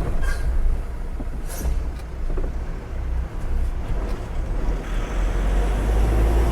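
Loaded goods truck's diesel engine running with a low steady rumble as it turns onto the highway, growing louder in the last second or two.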